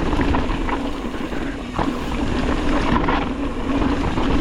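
Mountain bike descending fast over rocky dirt: wind rushing over the camera microphone while the tyres roll and the bike rattles over rocks, with a few sharp knocks.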